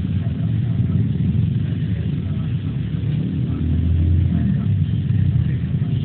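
Steady low rumble of road traffic, swelling briefly about four seconds in as a vehicle passes.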